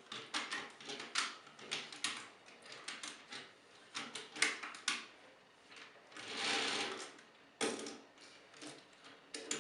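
Hard plastic toy parts of a Transformers figure clicking and clattering as they are handled, with a run of quick clicks and a longer scraping rustle about six seconds in.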